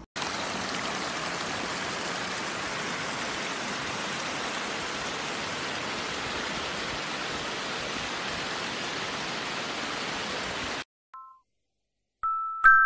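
A steady, even rushing hiss that starts and stops abruptly, cutting off suddenly near the end. A chiming mallet-percussion melody then begins just before the end.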